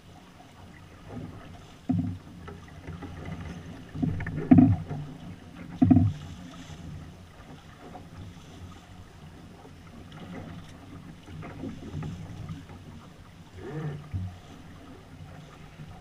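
Water rushing and splashing along the hull of a small sailboat under sail, with a few sharp thumps standing out: about two, four and a half and six seconds in, and again near the end.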